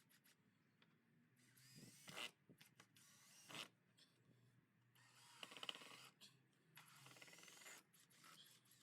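Faint rubbing and scraping in four short bursts of about a second each.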